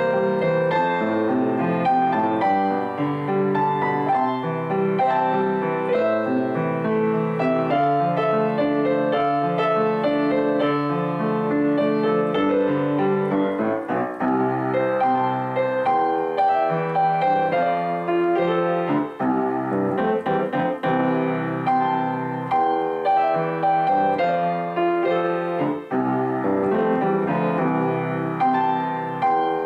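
Background piano music: a gentle, steady melody with chords.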